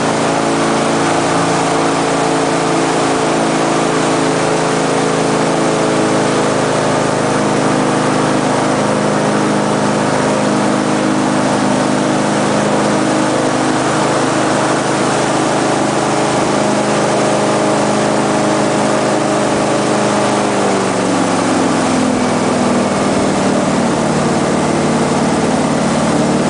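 Airboat's engine and big air propeller running steadily at speed, with a heavy rush of wind and air noise. The engine note drops about twenty seconds in as the boat slows.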